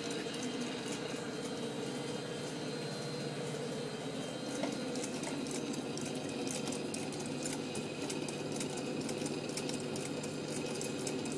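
Homemade beta-type Stirling engine running, built from tin cans with a wooden flywheel, a rubber-glove diaphragm and wire connecting rods. Its linkage and flywheel make a steady, rapid mechanical rattle, with one sharper click about four and a half seconds in.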